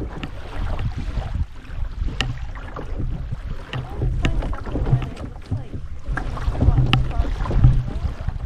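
Canoe being paddled: paddle strokes in the water with sharp knocks now and then, over a low rumble of wind on the microphone.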